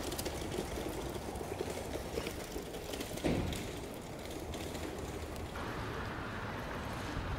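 Street background with a run of light, rapid clicks and one louder knock about three seconds in.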